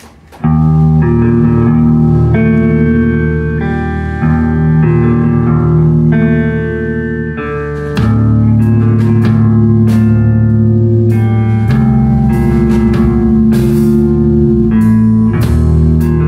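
A live rock band kicks into a song about half a second in: loud electric guitar chords over bass guitar and drum kit.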